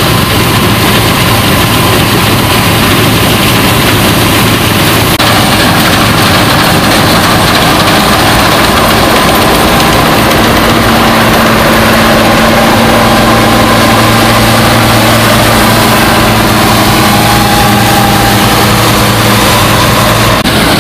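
Bizon Super Z056 combine harvester threshing rapeseed: its diesel engine and threshing machinery run steadily under load in one loud, continuous drone. The deeper engine tones grow stronger about halfway through as the combine passes close by.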